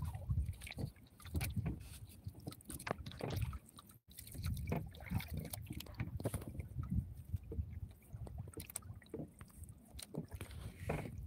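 Water sloshing and lapping against a small fishing boat, with irregular knocks and bumps.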